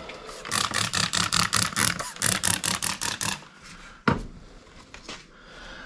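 Rapid back-and-forth scrubbing strokes, about seven a second for roughly three seconds, as the car's front grille is rubbed clean. A sharp knock follows about four seconds in, and a lighter one a second later.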